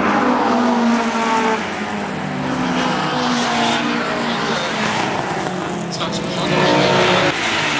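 Historic race car engines, a Datsun 240Z among them, running hard around the circuit. Their pitch rises and falls through gear changes, with a rising rev about two-thirds of the way through.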